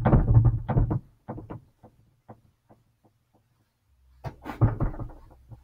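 Footsteps walking away and fading, about two a second, then a short quiet stretch. Near the end come louder knocks and thumps close by as someone comes back and handles things near the microphone.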